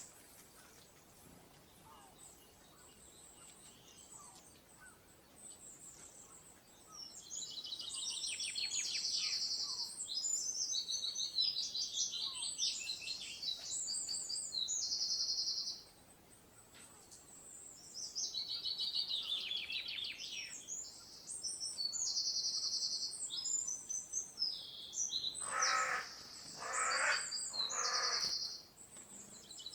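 Songbirds singing: bursts of high, rapid trills and buzzy phrases after a quiet start, with a short gap about halfway. Near the end three harsher, lower calls come in among the song.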